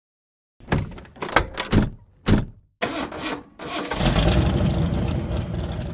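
An engine being started: a few short, separate cranking bursts, then it catches about three seconds in and keeps running with a steady low rumble.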